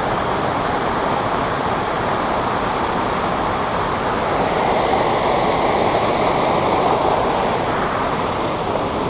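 Steady rushing of a fast-flowing creek over a shallow riffle.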